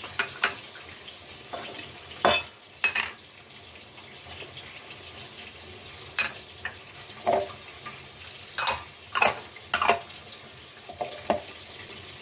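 Kitchen utensils clinking and knocking as chopped chilli, garlic, onion, ginger and tomato are put into a mixer-grinder jar: a dozen or so scattered, irregular clinks, over a faint steady hiss.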